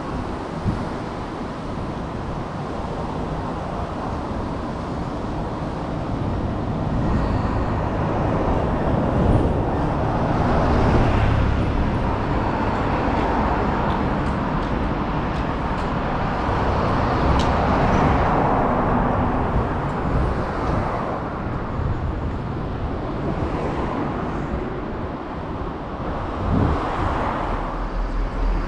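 Road traffic: cars and trucks passing on a city street. The steady rumble swells several times as vehicles go by.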